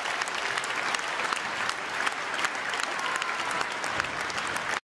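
Crowd applauding, a steady clatter of many hands that cuts off suddenly near the end.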